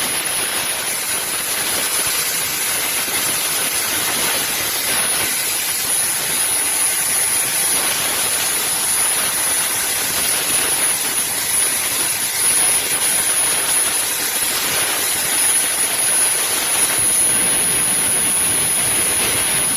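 Thermatech Deltacut 510 CNC cutting torch running through a cut: a loud, steady hiss with a thin high whistle over it. It starts abruptly and cuts off at the end, when the cut finishes.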